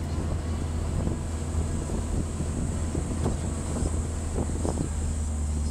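Interior noise of a moving vehicle: a steady low drone of engine and road noise, with a few light knocks or rattles partway through.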